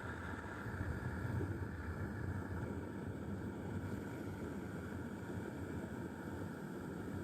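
Steady roar of the gas burner firing the homemade metal-melting furnace.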